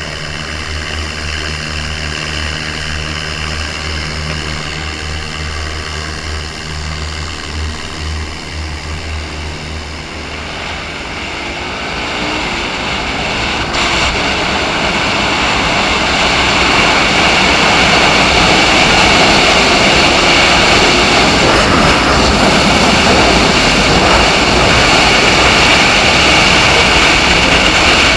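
An engine idles steadily with a low, even hum. From about ten seconds in, a growing rush of engine and wind noise rises in pitch as a motorcycle carrying the camera accelerates across the dry lakebed. By about seventeen seconds it settles into a steady loud run with wind on the microphone.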